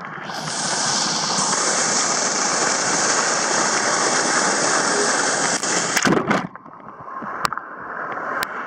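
Water spray splashing down close to a waterproof camera: a steady rush that breaks off about six seconds in with a few knocks, then a softer wash of water building again.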